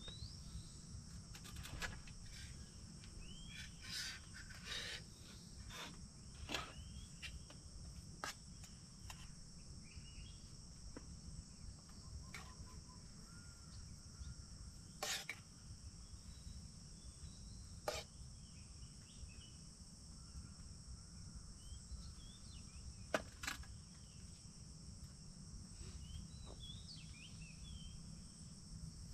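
Steady high-pitched drone of insects with birds chirping now and then, over a low outdoor rumble. Scattered light clicks and clinks of a utensil against a metal cooking pot and plate, a few sharper ones spread through.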